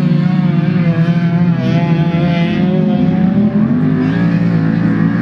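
Engines of several autocross touring cars racing on a dirt track, their pitch rising and falling with the throttle.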